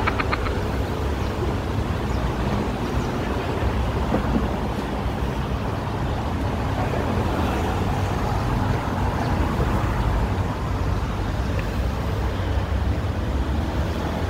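Steady road traffic noise: a low rumble with an even wash of noise above it.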